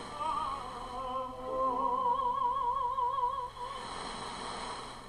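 A singer holding a long note with a wide vibrato, played over the Lloyd's JJ-1617 clock radio's speaker with steady background hiss.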